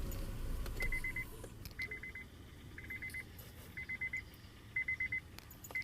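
Engine rumble dies away right at the start, then a car's warning chime beeps in quick bursts of about five beeps, one burst every second.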